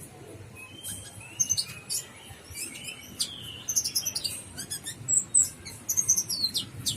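Olive-backed sunbird calling: a busy run of high, thin chirps and short, quick trills, some notes sliding downward.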